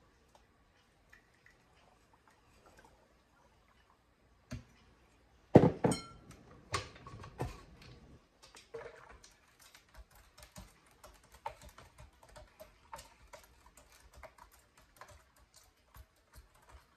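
Glassware and kitchen utensils handled on a counter: a sharp knock about halfway through the first third, a loud clatter of knocks a second later, then a long run of light, irregular clicks and taps.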